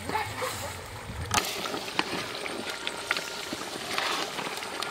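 Long metal ladle stirring a pot of boiling duck curry, with one sharp knock about a second and a half in and scattered clicks of the ladle against the pot.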